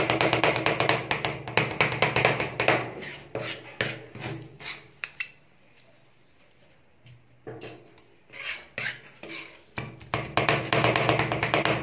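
Two metal spatulas chopping and scraping ice-cream base with mint and dates on a metal cold plate: a fast clatter of blade strikes that thins to a few scattered taps and a short pause midway, then picks up fast again near the end.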